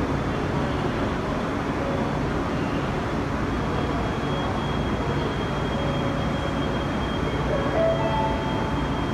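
Osaka Metro 10A series subway train moving through the station with a steady rumble and a thin high whine, joined near the end by short stepped tones from the motors.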